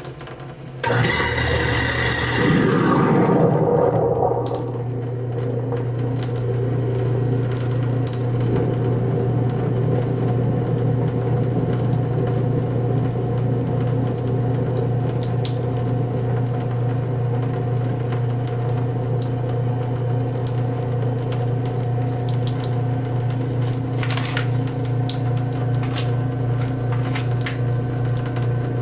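Kitchen sink garbage disposal switched on about a second in, with a disposal-cleaner packet inside: a loud burst of grinding for about three seconds, then the motor settles into a steady hum.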